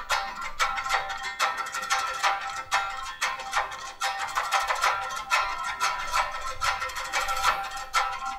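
Instrumental background music with fast, evenly repeated notes.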